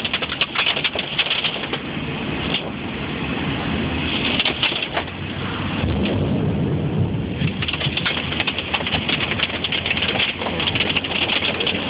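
Hail and rain hitting a car's roof and windshield, heard from inside the car: a dense, continuous patter of hits that thins briefly about halfway through.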